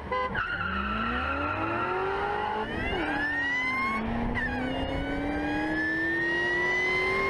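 A car engine at full throttle, accelerating hard, its pitch climbing steadily and dropping back at two upshifts, a little before and a little after halfway. A high whine rises and falls along with the engine.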